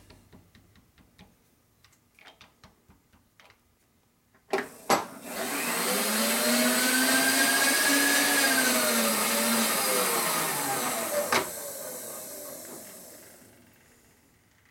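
A shop vacuum switched on about four and a half seconds in, running with a loud hiss and a motor hum whose pitch rises and then sags, then switched off with a click and winding down near the end. Before it, a few light taps and clicks.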